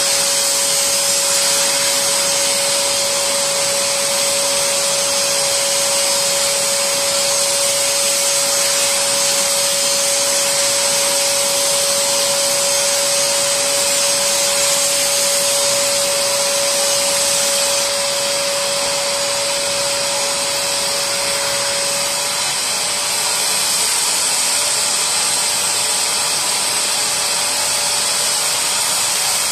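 Bissell SpotClean Pro carpet and upholstery extractor's suction motor running steadily with a rushing whine. A steady, higher hum over it cuts out about three quarters of the way through.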